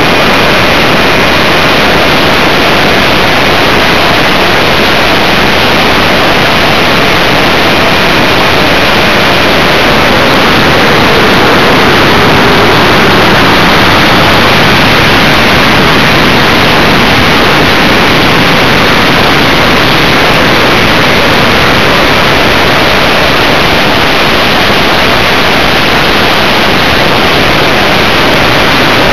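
Steady, loud rushing hiss of wind and propeller noise, heard through a small camera's microphone mounted on a Multiplex FunJet Ultra electric pusher model jet in flight. No clear motor note stands out, only a faint pitch that drifts briefly midway.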